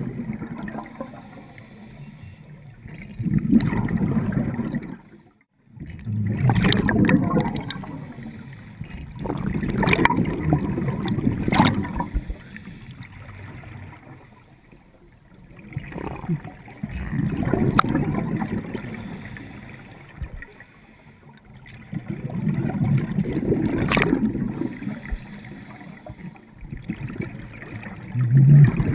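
Scuba diver breathing through a regulator underwater: exhaled bubbles rush and gurgle past the microphone in bursts every few seconds, with quieter gaps between breaths.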